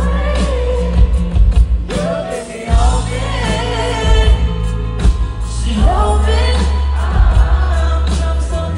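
Live pop performance: a female lead singer singing into a microphone over band backing with a heavy, steady bass line. The bass drops out briefly about two and a half seconds in.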